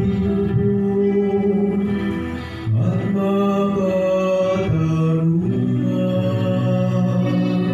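Church music: the responsorial psalm sung with instrumental accompaniment, in long held notes.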